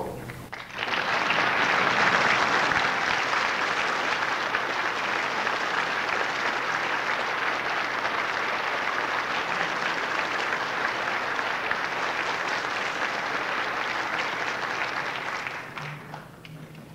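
A large audience applauding steadily for about fifteen seconds, welcoming a speaker who has just been introduced. It starts about half a second in and dies away near the end. The sound comes from an old cassette tape recording with a dulled top end.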